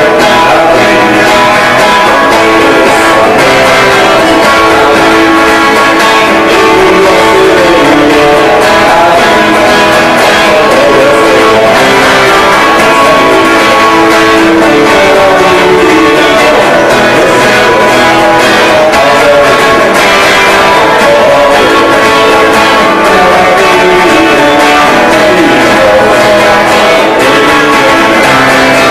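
Live band playing a song with guitar to the fore; the sound is loud and stays at a nearly constant level.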